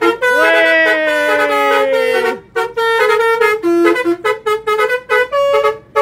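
Telolet Basuri musical horn on a bus, heard from inside the cab: one long tone that swoops up and then slowly sinks for about two seconds, then a fast run of short notes playing a tune.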